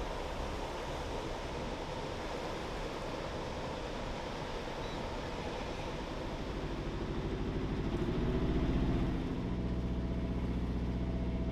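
Steady engine drone and rushing water of a sailboat under way under power. Sustained music tones fade in about halfway through and grow louder toward the end.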